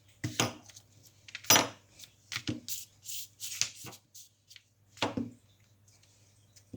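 Glue stick rubbed over a sheet of paper in irregular strokes: a series of short scraping and rubbing sounds with light knocks.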